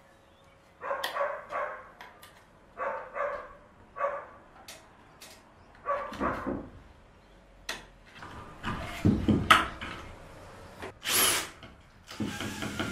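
A dog barks repeatedly, in short single and double barks, through the first six seconds. After that come louder knocks and handling noise as a wooden frame is fixed to the ceiling, and near the end a cordless drill runs in short bursts.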